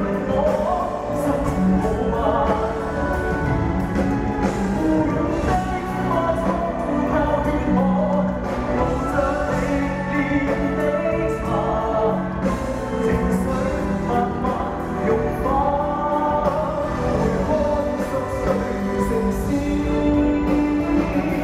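A male singer performing a Cantonese pop song live, accompanied by a full Chinese traditional orchestra, the music running continuously at a steady level.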